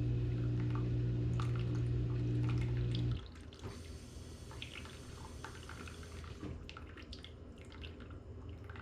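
Dishwasher motor humming steadily, cutting off suddenly about three seconds in, followed by water dripping and small clicks inside the machine.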